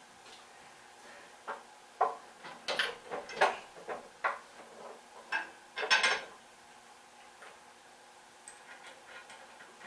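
Metal hardware clinking and clanking as bolts are test-fitted through the holes joining a drum sander to its dolly: a run of sharp knocks in the first six seconds or so, then only a few faint ticks.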